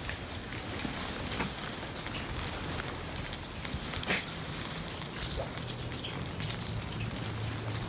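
Steady rain falling, with many individual drops ticking close by; one drop lands louder about four seconds in.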